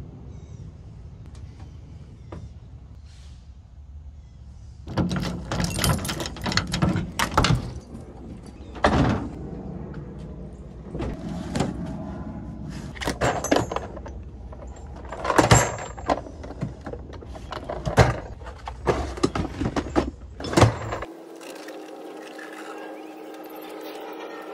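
Tools and gear being handled inside a work van: a run of clunks, knocks and rattles after a few seconds of steady low hum. Near the end the clatter gives way to a steady hum with one held tone.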